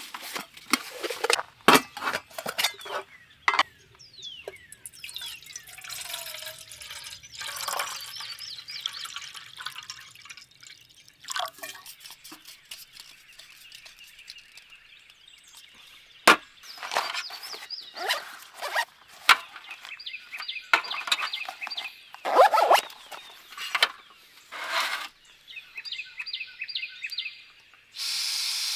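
Clinks, taps and rattles of lightweight metal camp cookware and a canister stove being handled and the stove screwed onto a gas canister, with birds singing in the background. Near the end a steady hiss starts as gas flows from the stove.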